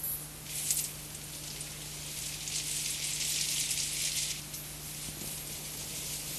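Scrambled sound of an encrypted pay-TV broadcast taped on VHS: a high-pitched hiss and crackle, like frying, over a steady low hum. The hiss swells about half a second in and drops back near four seconds.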